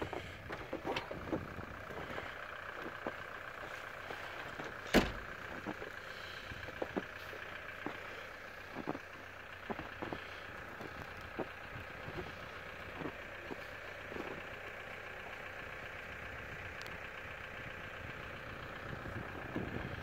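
Footsteps crunching in fresh snow, soft and irregular, over steady background noise, with one sharp knock about five seconds in.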